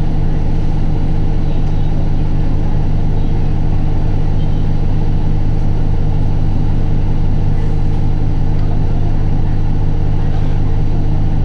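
Isuzu Erga city bus's four-cylinder diesel engine heard from inside the cabin, running at a steady, unchanging speed in a held fourth gear, with road noise from the tyres.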